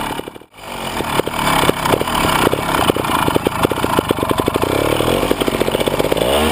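Beta trials motorcycle engine running at low revs with its separate firing beats audible, the beats quickening over a few seconds, then a short rise and fall in revs near the end. The sound drops out briefly about half a second in.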